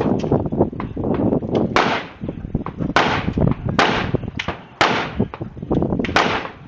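Gunfire: a run of shots in quick succession, five loud reports roughly a second apart with quieter cracks in between, each ringing out briefly.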